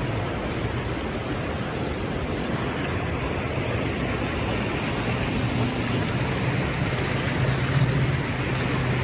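Steady rush of churning white water pouring past a concrete wall, an even noise with a low rumble underneath.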